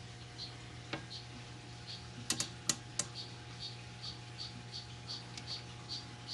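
A steady series of short, high chirps, about three a second, from a small animal calling among the vivariums, over a constant low hum. A few sharp clicks sound in the first half.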